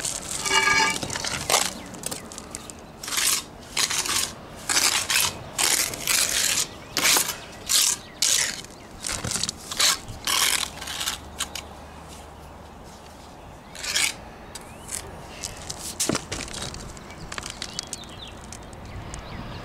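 Steel mason's trowel scraping and spreading wet cement mortar on a brick chimney top, a string of short, rough scrapes. They come thick and fast for the first half, with a last strong one about two-thirds through, then thin out to lighter scrapes.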